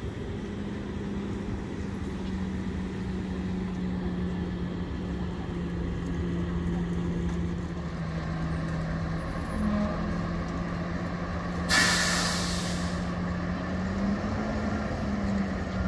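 Garbage truck engine running steadily, with a loud hiss of its air brakes releasing for about a second near the twelve-second mark.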